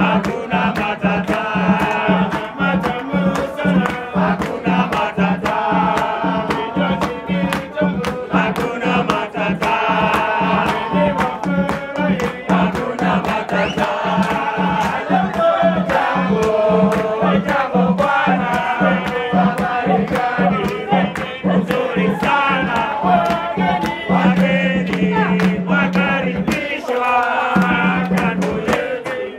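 A group of male voices singing a chant-like song together, over a drum struck in a steady, even beat.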